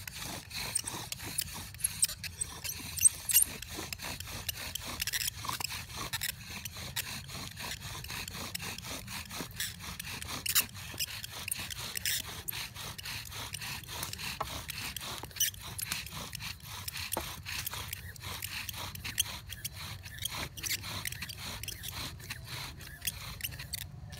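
A bow drill in use: the bow's cord spins a wooden spindle back and forth in a dry wooden fireboard, making a steady, continuous scraping with many small clicks.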